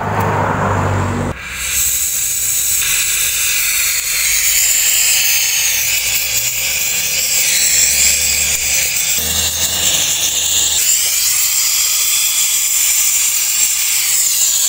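Compressed nitrogen blown through a Samsung side-by-side refrigerator's clogged refrigerant tubing to flush out oil and dirt. A lower rushing for about the first second and a half, then a steady, loud high hiss.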